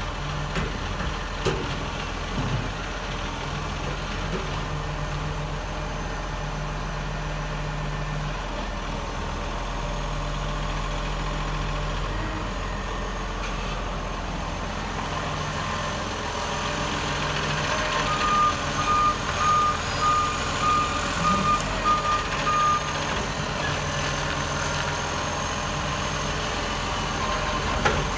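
Dennis Dual Control side-loading garbage truck's engine running as it moves slowly up to the kerbside bins. Just past halfway a warning beeper sounds about twice a second for roughly five seconds.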